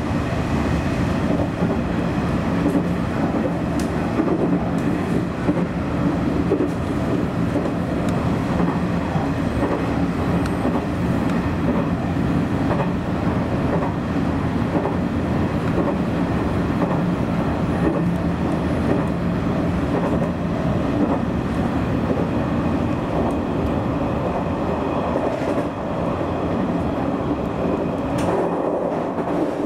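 Nishitetsu electric express train running on track, heard from inside at the front of the cab end: a steady rumble of wheels on rail under a constant hum, with a few sharp rail clicks near the end.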